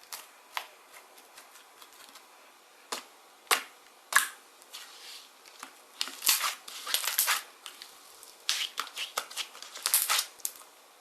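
Slime being squeezed and pressed by hand, giving irregular sharp clicks and pops that come in dense clusters in the second half.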